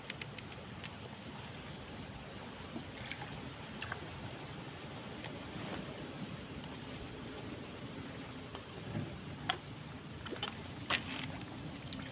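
Steady noise of strong wind and lapping water at the water's edge, with a few faint clicks.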